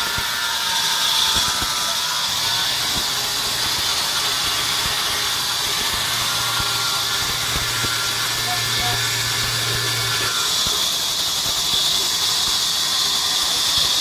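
Sawmill band saw running steadily: a constant high hiss over a low motor hum, the hum dropping away about ten seconds in. A few faint knocks near the start.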